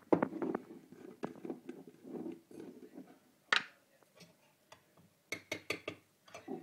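Irregular small clicks and knocks of objects being handled, with a sharper click about three and a half seconds in and a quick run of clicks near the end.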